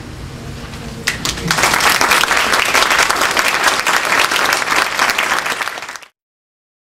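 Audience applauding, starting about a second and a half in and cut off abruptly at about six seconds. Before the applause, the last held chord of a girls' choir dies away.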